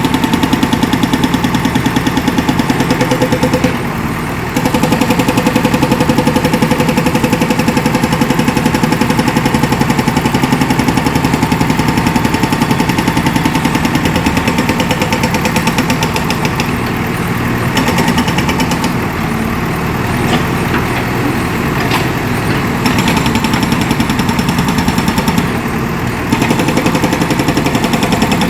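Hydraulic rock breaker on a JCB 3DX backhoe loader hammering in a rapid, even rhythm, with the backhoe's diesel engine running underneath. The hammering stops briefly several times, around four seconds in and a few times in the second half, then starts again.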